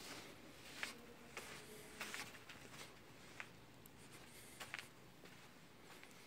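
Faint footsteps on a sandy floor inside a narrow rock passage: a few soft, irregular scuffs and ticks over quiet air.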